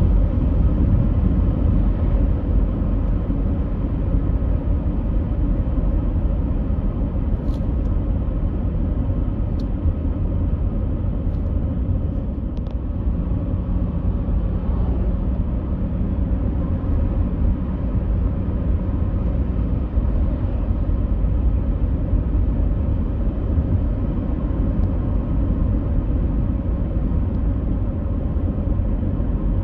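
A steady low rumble that holds unchanged throughout, with a few faint ticks about 7 to 13 seconds in.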